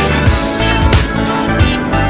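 Background music with a steady beat and guitar.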